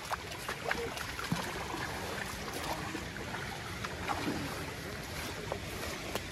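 Water sloshing, with scattered small splashes, in a flooded rice paddy over a steady rushing noise of water or wind.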